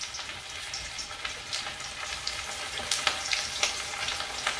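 Kipes (bulgur-and-ground-beef croquettes) deep-frying in a saucepan of very hot oil: a steady sizzle with many scattered crackles and pops.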